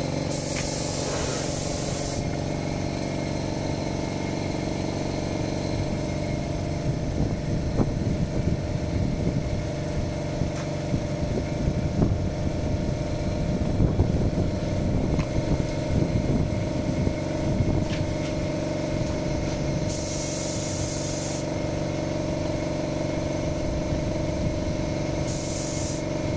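Gravity-feed paint spray gun hissing in short blasts: for about the first two seconds, again about twenty seconds in, and briefly near the end. Under it a steady mechanical hum, the air compressor running, with irregular light knocks in the middle.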